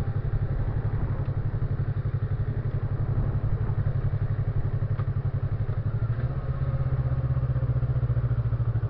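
Motorcycle engine running under way, a dense steady rumble of firing pulses; its note shifts slightly and settles about six seconds in.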